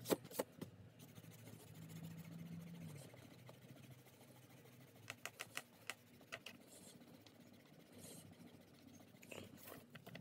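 Faint rubbing of a block eraser on paper, with sharp light clicks just after the start and a quick run of four or five clicks about five seconds in.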